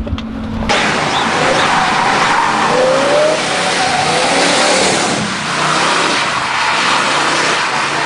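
A Dodge Charger done up as the General Lee driving hard on a wet road: its engine revving, rising in pitch a few times, over a loud steady hiss of tyres and spray.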